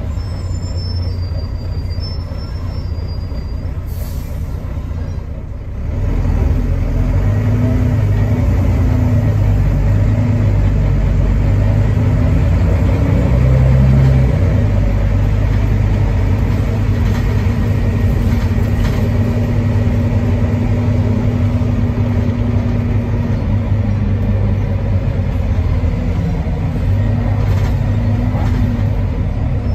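Volvo B9TL double-decker bus's Volvo D9B 9.3-litre diesel engine and ZF six-speed automatic gearbox, heard from the upper deck as a steady low drone. The engine noise gets louder about six seconds in as the bus pulls away, then holds steady.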